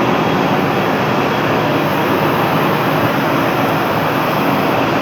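Slitting machine running during a cutting run, a loud, steady, dense mechanical noise with no breaks or separate strokes.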